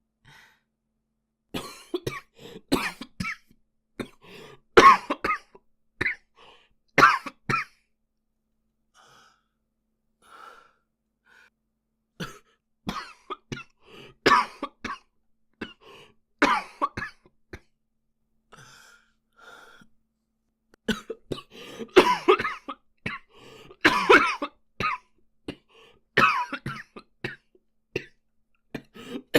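A boy coughing in repeated bouts of short, sharp coughs, with a quieter spell of only faint sounds from about eight to twelve seconds in.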